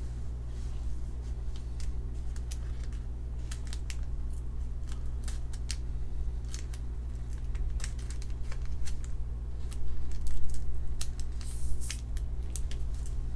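A trading card being slid into a clear soft-plastic card sleeve: irregular crinkling and clicking of the plastic, loudest about ten to twelve seconds in, over a steady low hum.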